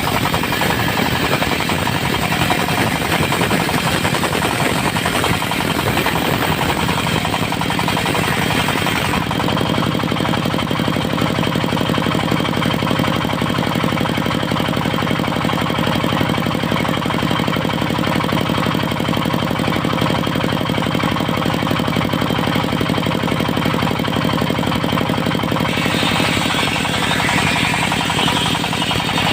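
Diesel engine of a portable circular sawmill running steadily with a rapid knocking beat. The saw blade cuts mahogany in the first nine seconds and again from about 26 seconds on.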